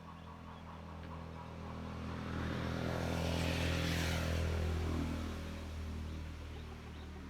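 A road vehicle passing by: its engine and tyre noise swell to a peak about halfway through, drop in pitch as it goes past, and fade, over a steady low engine drone.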